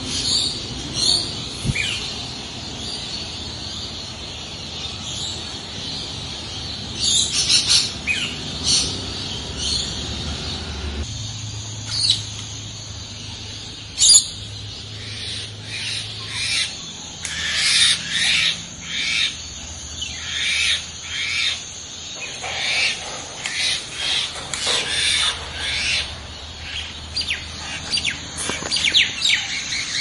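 Assorted birds chirping and calling: scattered short high calls at first, then a busy run of quick repeated calls from about halfway through.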